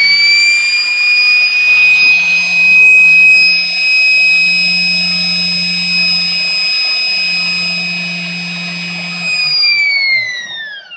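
Swiwin RC micro turbine rotor spinning on a balancing machine: a high whine, already rising at the start, holds steady, then falls away as the rotor spins down near the end, over a low hum that stops as the whine begins to fall. It is a balancing run measuring the rotor's unbalance.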